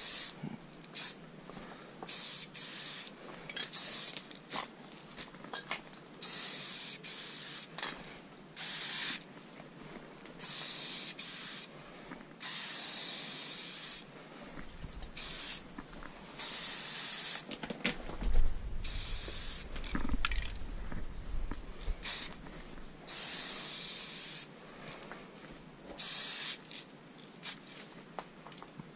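Aerosol spray paint cans hissing in repeated spurts, some short and some a second or two long, as paint is sprayed onto a train's side. A brief low rumble with a sharp knock comes about two-thirds of the way through.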